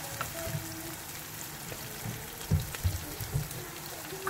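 Diced onion sizzling in hot oil in a frying pan while being stirred with a wooden spatula, with a few knocks of the spatula against the pan a little past halfway.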